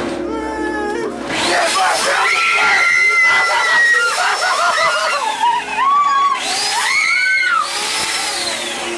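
Several people screaming and shrieking in fright, with long rising and falling cries, over a chainsaw revving.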